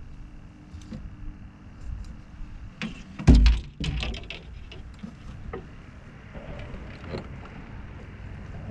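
Knocks and clatters of gear being handled in a fishing boat, the loudest a heavy thump about three seconds in, over a steady low hum.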